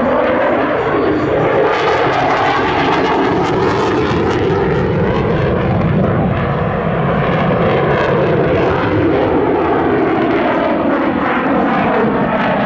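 Dassault Rafale fighter jet's twin Snecma M88 turbofans, loud and continuous during a display pass, with a pitch that slides down and up as the jet moves past.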